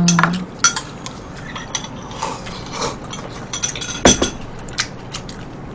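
Eating utensils, a spoon and chopsticks, clicking and clinking against bowls and earthenware pots in a scatter of small taps, with one louder knock about four seconds in.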